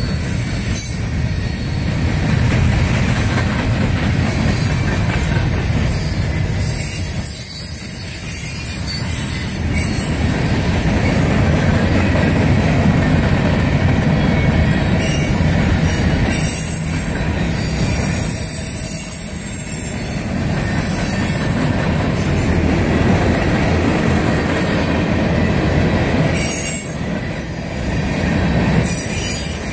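Freight cars of a long CSX manifest train rolling past close by: a steady rumble and clatter of steel wheels on the rails, with a thin high wheel squeal that comes and goes.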